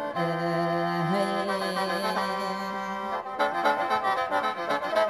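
Khaen, the Lao bamboo free-reed mouth organ, playing held chords over a steady drone in mor lam style; about three seconds in, a rhythmic beat from the band comes in under it.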